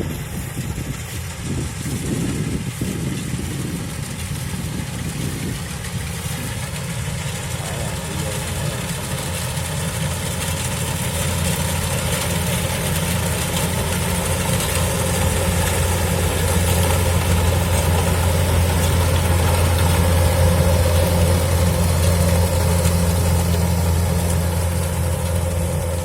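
Kubota DC-105X combine harvester's diesel engine running steadily as it harvests rice, growing louder from about ten seconds in.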